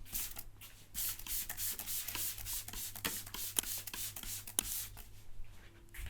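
Massage hands rubbing briskly over a person's hair and skin: a quick run of rough brushing strokes.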